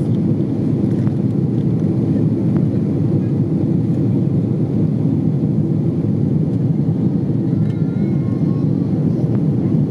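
Jet airliner engines and airflow heard from inside the passenger cabin, a steady low rumble that keeps an even level.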